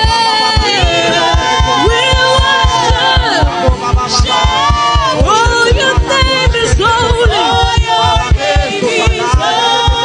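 Live church worship music: several voices singing and ad-libbing over a band with a steady drum beat of about four beats a second.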